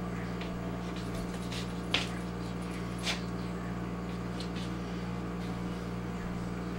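Steady low hum in a small room, with two short faint knocks about two and three seconds in.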